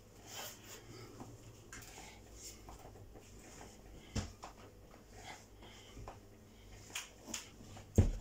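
Faint rustling and a few soft knocks from a person doing leg raises on the floor, with a louder thump near the end.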